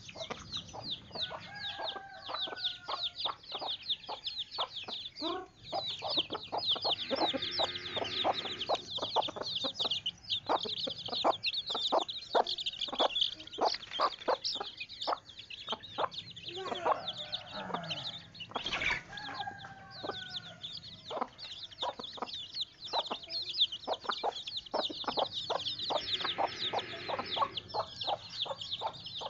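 Chickens clucking, with a few drawn-out calls, over a constant rapid high-pitched peeping and many short sharp taps.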